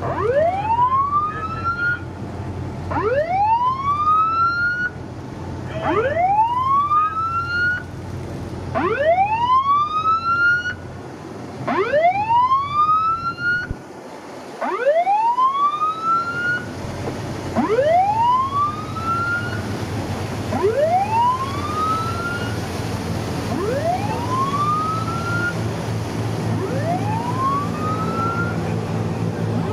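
Coast Guard patrol boat's siren sounding a repeated rising whoop, about one sweep every three seconds, each climbing quickly and levelling off, growing fainter in the second half. A steady low drone of engines and water runs under it.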